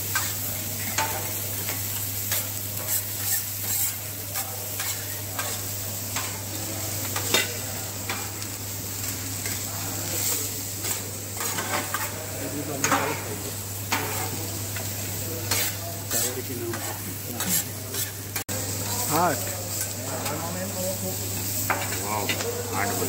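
Chicken pieces and fried rice sizzling on a flat steel teppanyaki griddle, with a steady hiss. Metal spatulas scrape and clack against the hotplate again and again as the food is stirred and turned. A steady low hum runs underneath.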